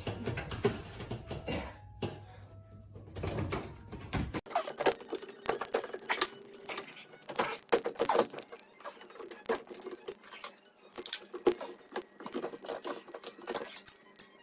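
Irregular clicks, knocks and light clatter of a Miele washing machine's casing panels and parts being handled and fitted back together by hand.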